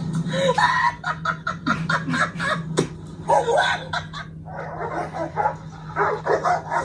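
Several dogs barking rapidly and over one another, with a short pause a little past four seconds in.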